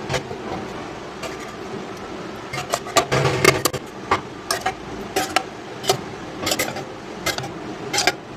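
Steel spoon scraping and knocking against a kadai while serving out mustard gravy: one stroke at the start, then about a dozen short scrapes and clinks from about two and a half seconds in, over a steady low hum.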